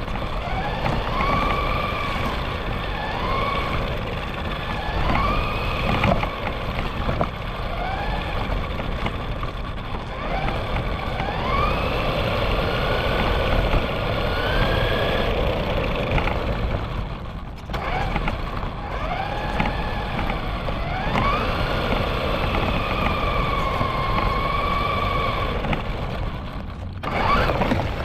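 RC car's motor whining as it is driven, the pitch rising and falling again and again with the throttle, over a steady rough rumble from the wheels on the pavement. The whine drops out briefly twice, at about seventeen seconds and near the end.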